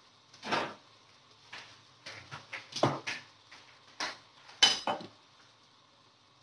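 Kitchenware being handled: about a dozen irregular knocks and clinks of dishes, pots and utensils, the sharpest a little past halfway, then stopping.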